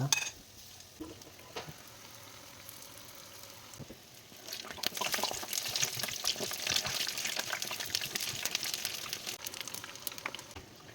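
Batter-coated cauliflower pieces frying in hot oil. The first few seconds are quiet, then a dense crackling sizzle starts about four seconds in and thins out near the end.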